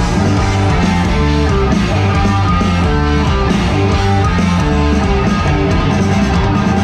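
A live rock band playing loud through a concert sound system, with guitar prominent over a heavy bass line.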